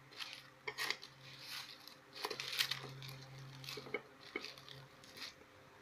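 Chopsticks tossing strips of rice paper and shredded mango in an aluminium pan: irregular light rustles and clicks of the sticks against the metal.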